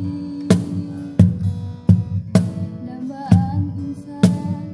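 Acoustic guitar strummed alongside a medium-size wooden cajon (box drum) slapped by hand in a steady beat of sharp strikes, with a voice singing over them.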